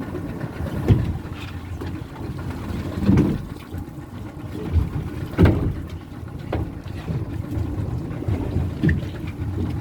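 Boat on open water with wind rumbling on the microphone, broken by several sharp thumps, the loudest about halfway through.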